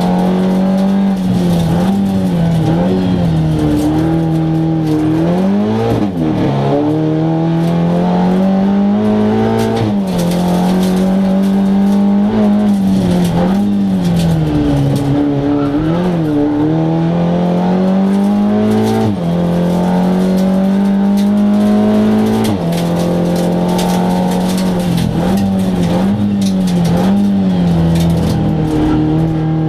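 The Seat Leon Cup race car's turbocharged four-cylinder engine, heard from inside the cabin, driven hard on track. The revs climb and then drop sharply again and again, with gear changes and lifts for corners.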